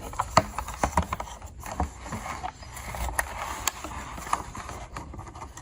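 Small metal clicks and scrapes from handling a folding multi-tool as its tiny eyeglasses screwdriver is worked out. The clicks come thick and fast in the first couple of seconds, then thin out to a few.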